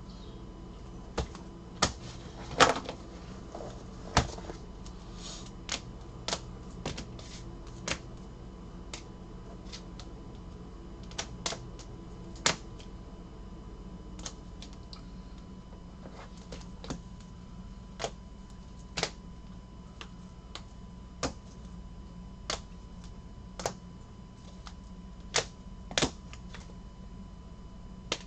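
Trading cards in rigid plastic top loaders and cases clicking and tapping against a tabletop and each other as they are handled and laid out, in irregular sharp clicks about once a second, over a faint steady hum.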